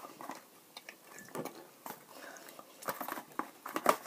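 People chewing jelly beans close to the microphone: quiet, irregular wet mouth clicks and smacks.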